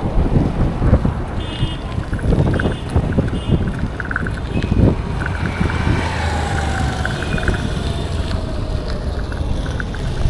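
Road traffic heard from a moving bicycle: a steady rumble with wind buffeting the microphone, and a vehicle engine whose pitch falls slowly as it passes. Short high-pitched beeps sound several times early on.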